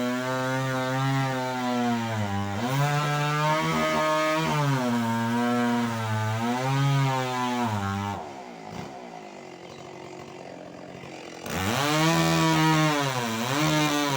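Stihl MS 381 two-stroke chainsaw running at high speed while cutting durian wood, its engine note repeatedly dipping and recovering under load. Near the middle the sound falls away for about three seconds, then returns abruptly at full speed.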